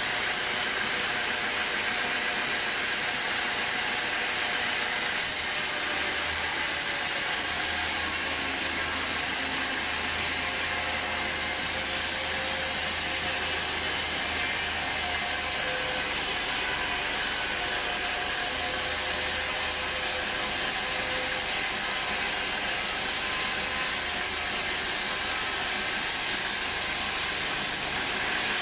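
Homemade band sawmill running steadily, its band blade sawing lengthwise through a teak log.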